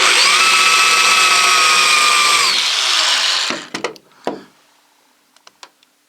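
Electric drill running at speed, drilling out the rivets that hold a truck topper's rear window latch; its whine winds up at the start and winds down after about three seconds. A few light clicks and knocks follow.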